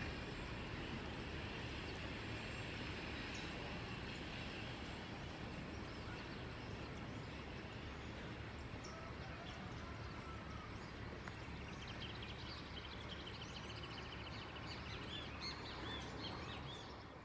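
Faint outdoor ambience: a steady low background noise, with small birds chirping and one giving a rapid trill in the last few seconds.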